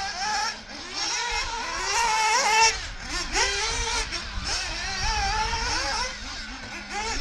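Several radio-controlled off-road buggies running on a dirt track, their small motors rising and falling in pitch as they accelerate and brake through the corners, several at once; loudest about two seconds in.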